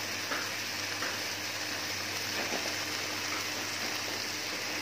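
Food sizzling steadily in a frying pan during a sauté, with a few faint clicks and a faint steady hum underneath.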